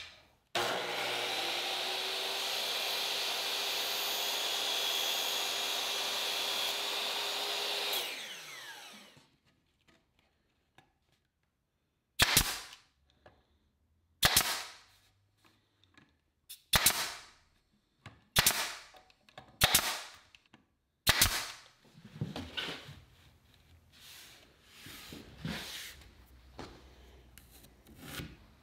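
A power tool runs steadily for about eight seconds and spins down. Then a pneumatic brad nailer fires about six sharp shots, one to two seconds apart, driving nails through sapele molding into a wooden frame, followed by lighter knocks and handling of the wood.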